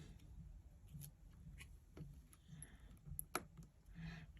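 Near silence with a few faint, short clicks of small parts and a tool being handled while fitting the front camera assembly back into an iPhone 7 Plus; the clearest click comes about three and a third seconds in.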